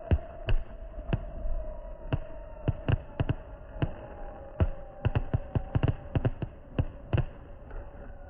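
Fireworks going off: a string of sharp, irregular bangs that come thickly about five seconds in and die away near the end, over a steady hum.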